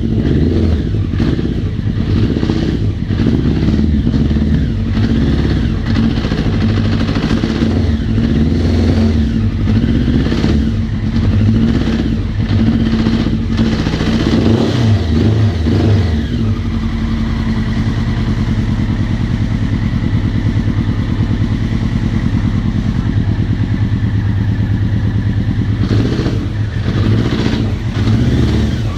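1999 Honda CBR900RR Fireblade's inline-four engine running, revved unevenly through the first half and then idling steadily, with revving again near the end. It is the engine its owner reports as knocking and losing power.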